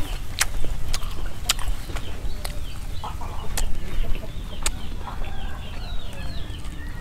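Eating mouth sounds, chewing and lip smacks, give sharp clicks about once a second, while chickens cluck in the background.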